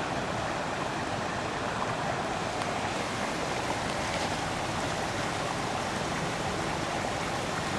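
Steady rushing of a river running full, water noise without breaks.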